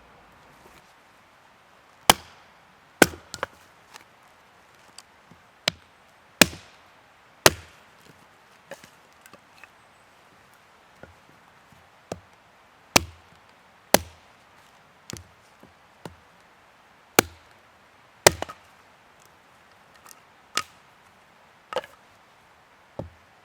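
Firewood being chopped: a run of sharp, single chops at uneven intervals, roughly one a second, with lighter taps in between.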